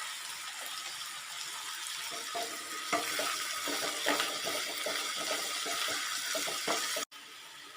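Chopped onion, potato, carrot, capsicum and cauliflower sizzling in hot coconut oil in a pan while being stirred, with repeated spatula scrapes against the pan. The sound cuts off suddenly near the end.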